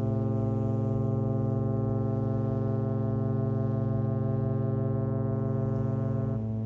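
Cruise ship Westerdam's horn sounding one long blast of about six and a half seconds: a deep, steady tone that cuts off sharply and echoes briefly across the harbour. A prolonged blast like this is the signal a ship gives as it leaves its berth.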